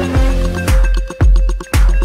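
Hardstyle electronic music with a heavy kick drum on a steady beat, about two a second, under a held synth note.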